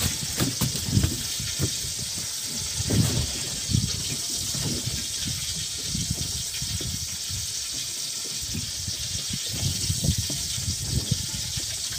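Steady rush of water, with irregular low bumps throughout.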